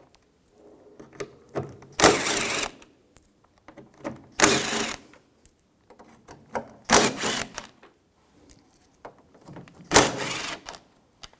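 Power driver with a T30 socket spinning out the door panel's screws in four short runs, each under a second and about two and a half seconds apart, with small clicks of handling between.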